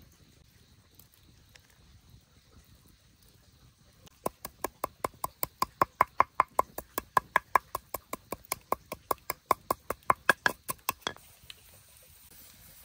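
A fast, even series of sharp knocks, about five a second, starting about four seconds in and stopping abruptly about seven seconds later.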